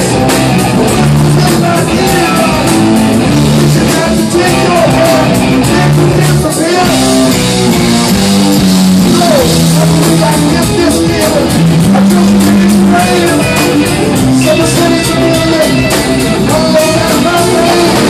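Live rock band playing loud: electric guitars and drums, with a harmonica cupped to the vocal microphone bending notes over the band.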